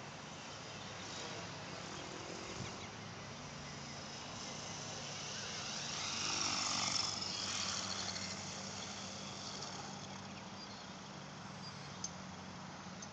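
Thunder Tiger X50-E electric RC helicopter's rotor noise as it comes down to land, growing louder about six to eight seconds in as it nears, then easing off to a steady hum.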